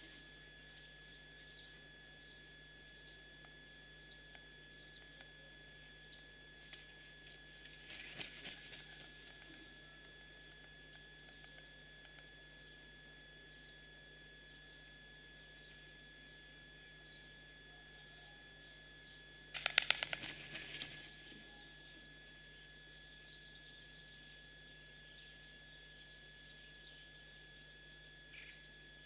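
Steady electrical hum on the nest camera's microphone. About two-thirds of the way through, a white stork's bill-clatter sounds: a rapid run of clicks lasting about a second, with softer rustling earlier.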